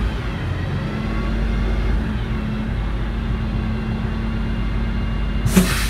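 Diesel engine of a Dennis Eagle bin lorry running steadily, a low rumble with a steady hum. Near the end comes a short burst of hiss with a thump.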